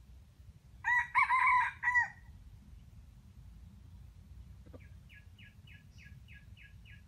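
Red junglefowl rooster crowing once, a short clipped crow of about a second. Near the end, a faint run of about seven short high chirps, roughly four a second.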